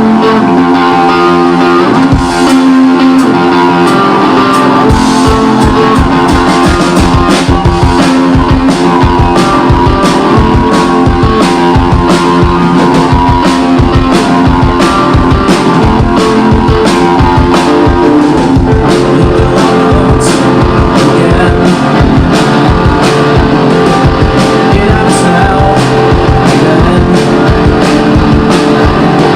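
Rock band playing live: electric guitar chords ring out, and a drum kit comes in about two seconds in with a steady, driving beat.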